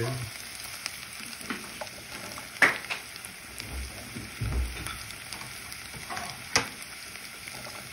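Chicken, onions and chopped green pepper frying in butter and oil in a pot, with a steady sizzle as they are stirred with a silicone spatula; a few sharp knocks stand out, two of them loudest.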